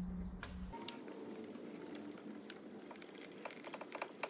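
Quarter-inch-drive ratchet on a long extension and 13 mm socket undoing a tensioner bolt, clicking rapidly in the second half. A low hum cuts off under a second in.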